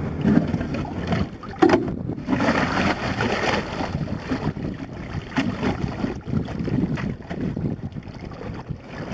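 Shallow river current running around a bucket, with wind buffeting the microphone and a few sharp knocks of river rocks being shifted in a bucket of sandy gravel.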